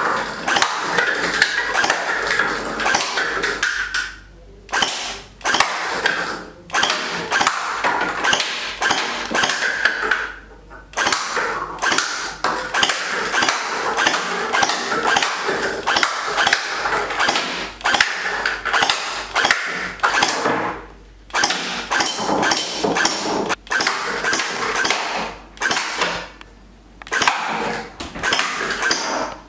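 SKD M4 electric gel blaster firing in long rapid-fire bursts, its motor and gearbox cycling with a fast string of shots, while gel balls strike and scatter paper cups. The bursts are broken by about five short pauses.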